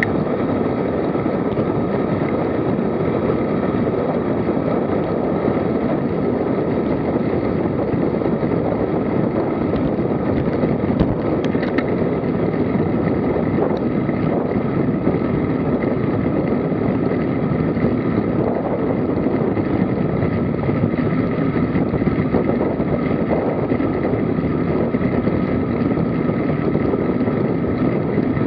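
Steady rush of wind over the microphone of a camera on a road bike riding at about 35–45 km/h on an asphalt road.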